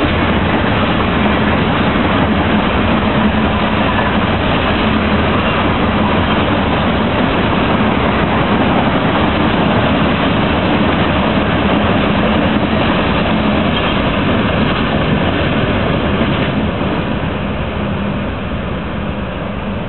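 Norfolk Southern coal train's hopper cars rolling past, steel wheels on rail making a steady noise that fades over the last few seconds as the end of the train goes by.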